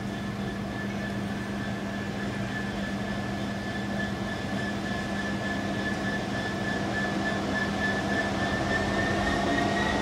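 Class 66 diesel-electric freight locomotive with its two-stroke V12 engine, approaching slowly. A steady low hum and a steady high whine grow gradually louder, and near the end the whine begins to rise in pitch.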